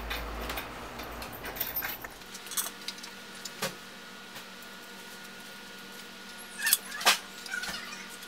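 Scattered metallic clinks and taps of steel casing bolts and a wrench being handled and fitted into a pump volute, with two sharper clinks near the end.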